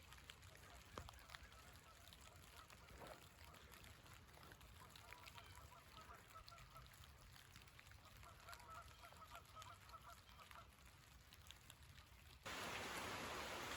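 Faint, distant bird calls in near silence, in a run of short repeated calls in the middle. Near the end the sound cuts suddenly to steady rain falling on a tin roof.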